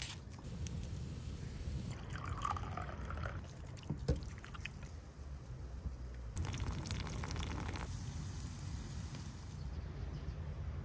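Wet food-preparation sounds: raw chicken in a saffron-and-egg marinade being handled, with liquid dripping and splashing, a sharp click about four seconds in, over a steady low rumble.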